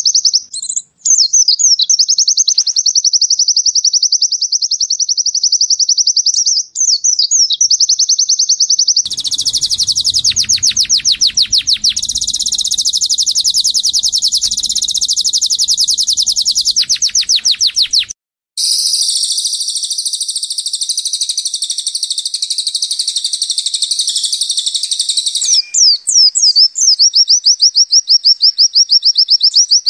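White-eye (pleci) birdsong. A fast run of repeated high chirps is interrupted after about nine seconds by two spliced-in stretches of denser, fuller songbird song, cut apart by a brief hard break. The fast chirping run returns near the end.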